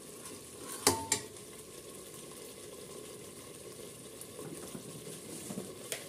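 Spice paste sizzling and bubbling in oil in a pressure cooker, the masala-rinse water just poured in, while a steel ladle stirs it. The ladle knocks sharply against the pot twice about a second in and once near the end.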